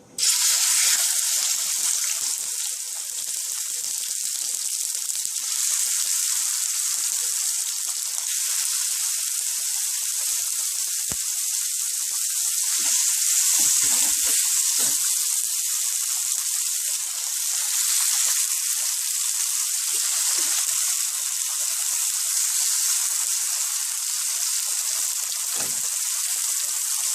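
Seasoned chicken breast frying in olive oil in a hot pot: a steady, loud sizzle that starts suddenly and holds without a break.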